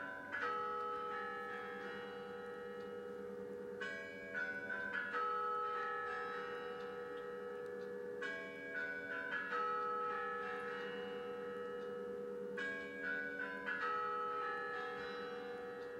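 The Kremlin's Spasskaya Tower clock bells play the chime that comes before the clock strikes midnight, heard through a television broadcast. Each phrase is a quick run of bell notes that keep ringing long after, and it starts anew about every four seconds, at roughly four, eight and twelve and a half seconds in.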